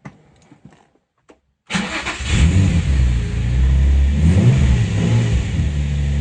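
Nissan car engine starting about two seconds in: a brief crank, then it catches, revs up and settles into a steady idle, a sign that the new clutch safety switch now lets the starter work.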